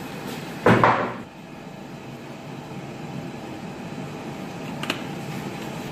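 Steady kitchen hum and hiss, with one short loud clatter just under a second in and a faint click near the end.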